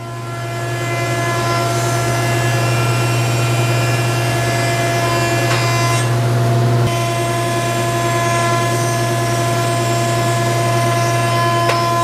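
A 20-inch Jet planer with a helical cutterhead running steadily while it planes a board fed through at a slowed feed rate. It is a strong low hum with a steady whine above it, and the sound changes briefly about halfway through.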